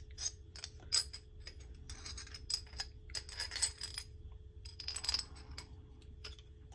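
Metal parts of a folding survival shovel clinking and clicking against each other as its threaded handle sections and knife blade are handled and screwed together: a scatter of sharp clinks in small clusters.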